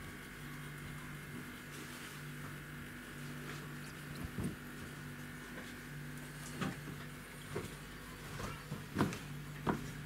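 A low hum that keeps breaking off briefly, with a handful of soft knocks and taps, most of them in the second half.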